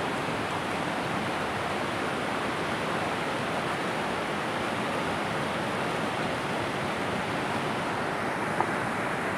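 Fast river water rushing steadily over rocks and rapids. A single short click sounds near the end.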